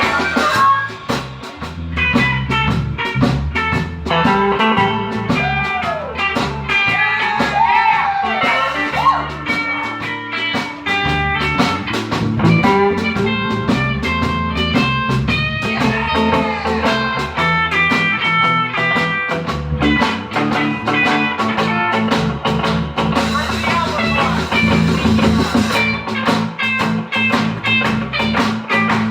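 Live blues band playing, with a guitar line whose notes bend up and down in pitch about a quarter of the way in.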